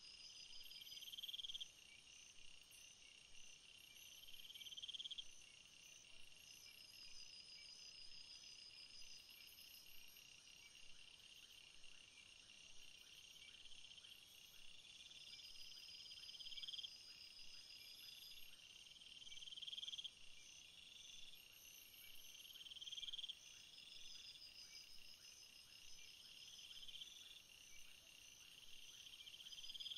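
Faint chorus of night insects trilling at several high pitches, with the loudest, buzzing trill returning about every three seconds.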